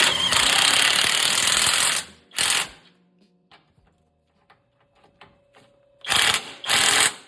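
A power tool running down the sway bar bushing bracket bolts: one run of about two seconds, a short burst after it, then two quick bursts near the end, with faint clicks in between.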